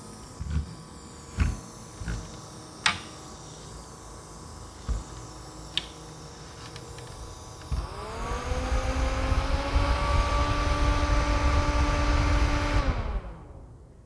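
Mini evaporative air cooler's fan: a few light clicks and knocks as the plastic unit is handled, then about eight seconds in the fan motor starts with a rising whir. It runs steadily for about five seconds and winds down with a falling pitch near the end.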